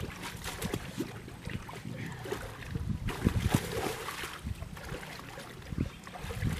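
Wind rumbling on the microphone, with irregular thumps, rustles and water sloshing as a wet carp retainer sling is handled and dipped at the water's edge.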